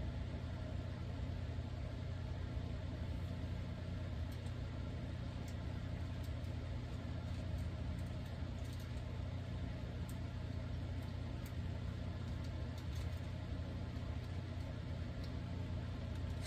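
Steady low mechanical hum, with faint scattered small clicks of metal fishing-reel parts and a small screwdriver being handled.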